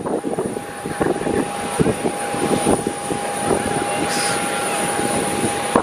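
Airliner engine noise on an airport apron: a steady whine over a rushing roar, with scattered low thumps.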